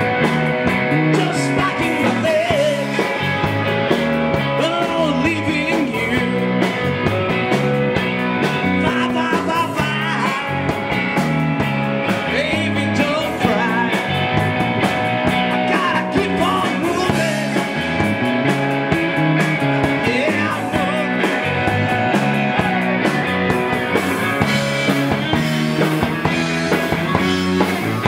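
Live rock band playing: amplified electric guitar over a drum kit with cymbals, in a steady beat.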